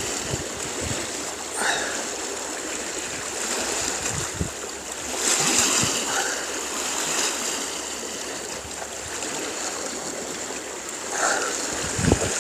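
North Sea surf washing onto the shore at high tide, a steady rush of breaking waves that swells louder about five seconds in.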